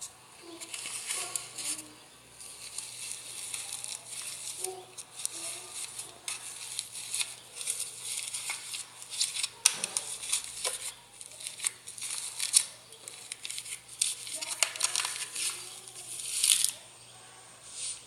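Slime being squished and worked by hand, giving a dense, irregular run of wet crackles, clicks and small pops.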